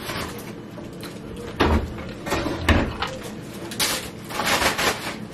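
Two dull knocks on a dining table about a second apart, then a stretch of crackling near the end, amid eating at the table.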